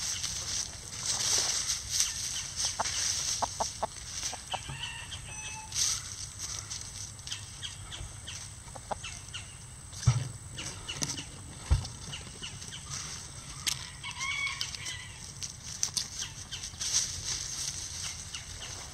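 Chickens foraging in dry leaf litter: irregular rustling and scratching, with a few short, soft clucks now and then. Two low thumps stand out in the second half.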